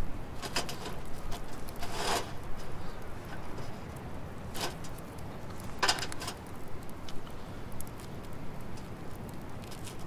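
Wood fire crackling under a wire grill, with small scattered pops, and four short rustling scrapes as food is handled on the grate, the longest about two seconds in.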